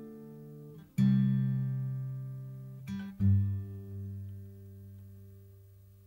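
Acoustic guitar music: a chord is struck about a second in and another just after three seconds. Each is left to ring and fade away as the piece ends.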